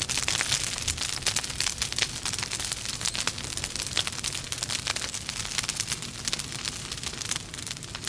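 Logs burning in a fireplace, crackling with many rapid, irregular pops and snaps over a steady low rumble.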